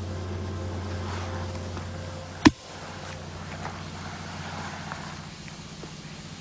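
A steady low hum, with one sharp, loud click about two and a half seconds in and faint scattered ticks after it.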